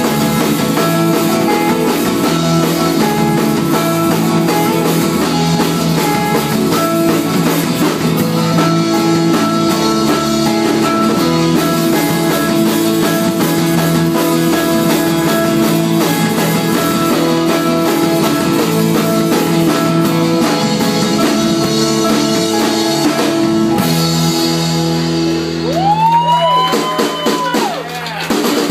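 A live band plays an instrumental passage: strummed steel-string acoustic guitars over a drum kit, at a steady loud level. Near the end the sound changes, with sliding pitches.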